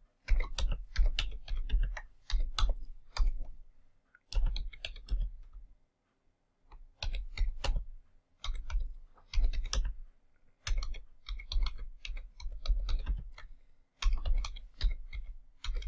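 Typing on a computer keyboard: runs of quick keystrokes with short pauses between them, and a break of about a second and a half near the middle.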